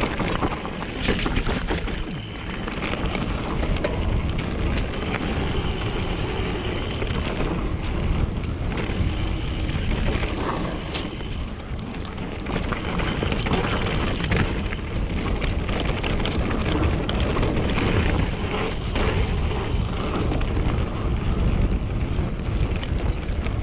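Mountain bike descending a dirt trail at speed: heavy wind rumble on the microphone over tyre noise, with frequent sharp rattles and knocks from the bike jolting over the ground.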